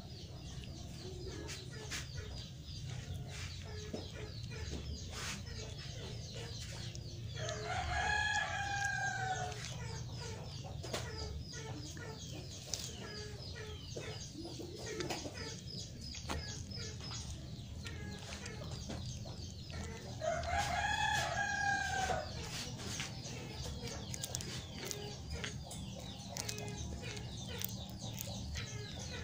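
A rooster crows twice, about twelve seconds apart, each crow lasting about two seconds. Between the crows come the small wet clicks and crunches of a cat chewing a fish head close by.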